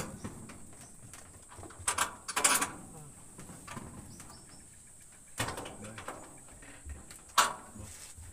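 A few scattered sharp knocks and clatters: a pair about two seconds in, another after five seconds and a single sharp one near the end.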